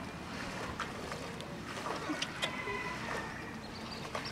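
Steady outdoor background noise with a few small sharp clicks and wet splats scattered through it. A high, wavering tone comes in near the end.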